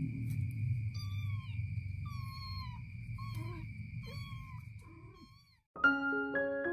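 A kitten mewing about five times in short, falling calls, over a steady high-pitched whine and a low rumble. Near the end it cuts off and piano music begins.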